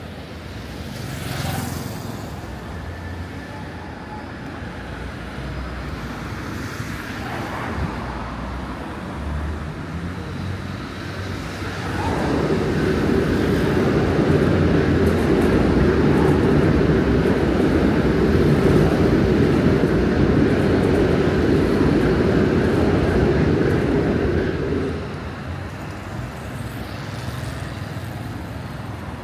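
City street traffic, with a loud, even rumble from a vehicle passing close that starts abruptly about twelve seconds in, holds for some thirteen seconds and then drops away.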